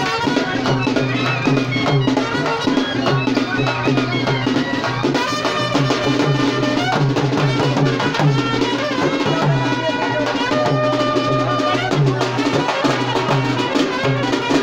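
Live band music from drums and a trumpet: a steady, evenly repeating drum beat under a shifting melody line.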